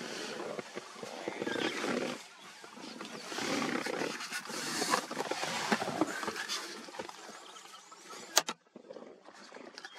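African wild dogs making rough, noisy vocal sounds in several bursts of a second or two, with a sharp click near the end.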